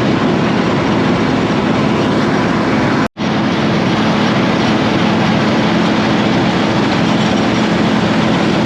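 Combine harvester running at work, a loud, steady drone of engine and machinery with a constant low hum. It cuts out completely for a split second about three seconds in.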